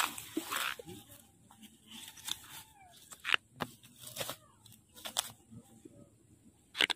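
A mesh net bag holding a green plastic container handled and laid down on grass: rustling at the start, then scattered short crackles and taps, the sharpest near the end.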